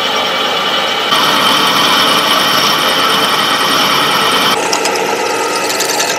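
Pillar drill running and boring through thick steel plate, a steady motor whine with the grinding of the bit cutting. It gets louder about a second in and turns to a fast rattling near the end.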